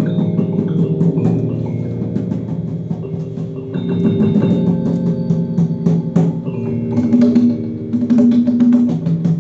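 Electronic keyboard played through an amplifier, holding sustained notes and chords, over a hand drum struck in quick, steady strokes.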